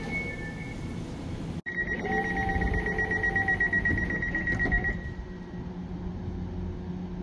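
Elizabeth line door-closing warning: a rapidly pulsing, trilling high beep that starts a little under two seconds in and lasts about three seconds, over the steady hum of the train and station.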